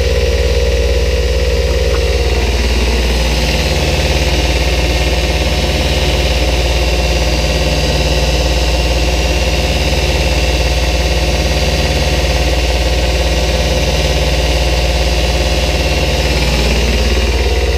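Shop machinery running with a steady mechanical hum. A higher tone within it fades about two and a half seconds in and returns near the end.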